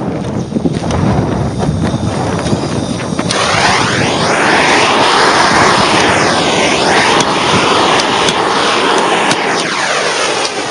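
Several sharp clicks of a long-nosed utility lighter being triggered, which fails to ignite the fuel. Behind them, a loud steady rushing noise sets in about three seconds in, its pitch sweeping up and down.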